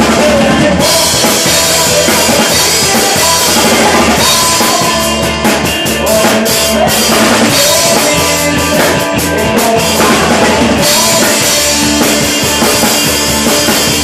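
A drum kit played live along with a recorded rock song: kick, snare and crash cymbals over guitar and bass. The cymbals wash for much of it, with a stretch of separate sharp hits in the middle.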